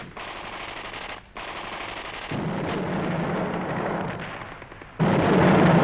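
Rapid machine-gun fire in a continuous battle din. Louder bursts start abruptly about two and a half and five seconds in.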